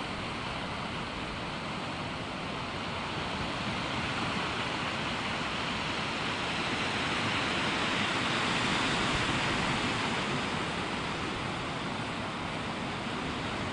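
Surf breaking and washing up a beach, a steady rush that swells to its loudest a little past the middle and eases off again.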